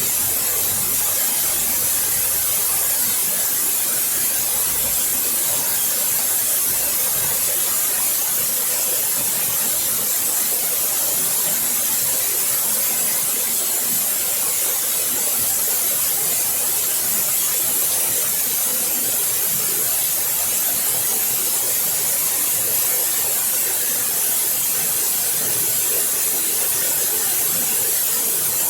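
Waterfall: a steady, unbroken rush of falling water, strongest in the hiss of the spray.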